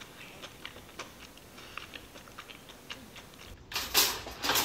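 Light, irregular ticking and clicking, several times a second. About three and a half seconds in, a much louder burst of noise takes over.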